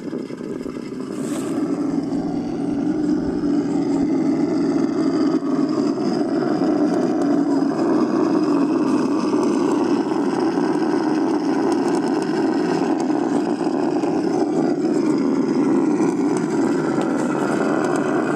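Steady drone of an Axial SCX10 scale RC crawler's electric motor and gear drivetrain as it crawls over rock.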